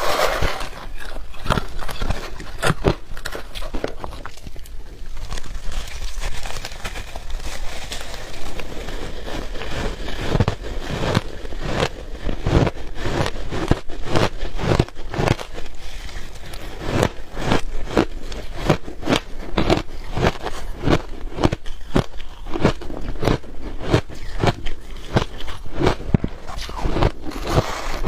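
Shaved ice being bitten and chewed close to the microphone: a continuous stream of crisp crunches and crackles, several a second.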